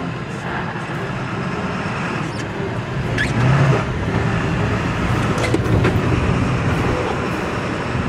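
Pickup truck running with its road rumble, heard from inside the cab, with a few short knocks partway through.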